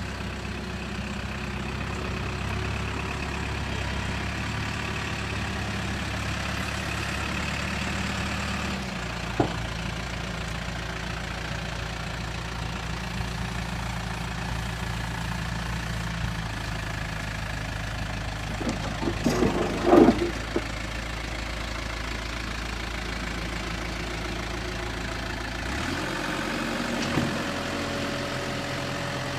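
Case 580 Super M backhoe's diesel engine idling steadily, its low hum shifting in tone about a third of the way in and again near the end. A single sharp click, and about two-thirds of the way in a short clatter of metallic knocks, the loudest sound here.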